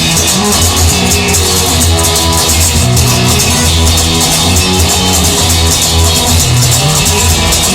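Instrumental rock music: guitar with bass and drum kit playing, without vocals.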